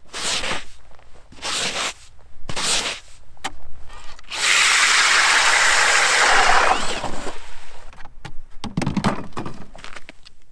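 Three short rasping scrapes, a click, then a louder grinding rush lasting nearly three seconds, and a few more scrapes near the end.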